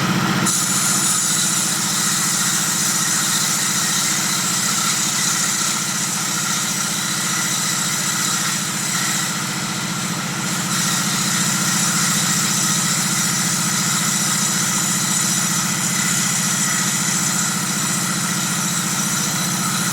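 Table saw running steadily, a constant motor hum under a high hiss. The hiss falls away briefly about halfway through, then returns.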